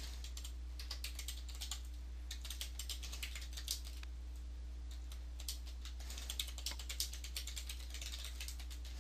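Typing on a computer keyboard: a run of quick, irregular key clicks that slacken briefly about halfway through, over a low steady hum.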